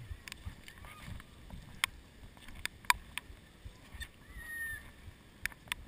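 Mountain bike rolling over a gravel and dirt trail: a low tyre rumble with scattered sharp clicks and knocks from the bike rattling.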